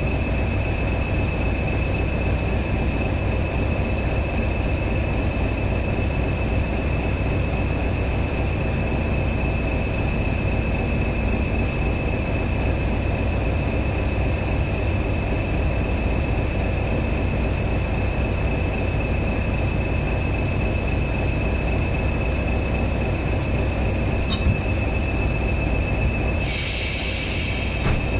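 English Electric Class 20 diesel locomotive hauling a train, heard from an open carriage window just behind it: the engine runs steadily under power with a low rumble and a steady high whine, over the noise of the wheels on the rails. A burst of hiss comes in near the end and lasts about two seconds.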